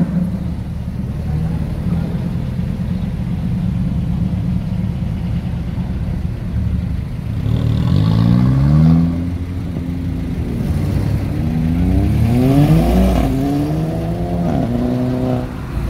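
Car engines idling with a low, steady rumble, then revving and pulling away one after another, with engine notes climbing about halfway through and several more rising revs in the second half.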